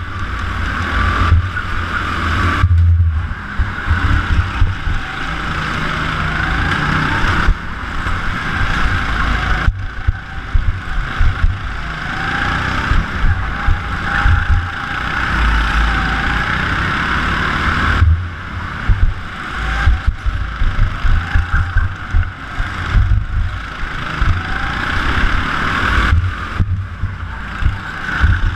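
Go-kart engine running at racing speed, its pitch rising and falling as the kart brakes and accelerates through the corners, over a heavy, choppy low rumble.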